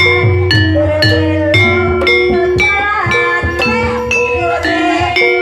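Javanese gamelan music for ebeg dance: struck metal keyed instruments and small gongs ringing out a melody on a steady beat of about two strokes a second, over a low drum.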